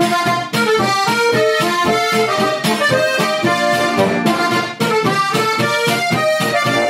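Lanzinger diatonic button accordion (Styrian-style harmonika) in C-F-B♭ playing a lively folk tune: a melody line over a regular beat of bass notes and chords.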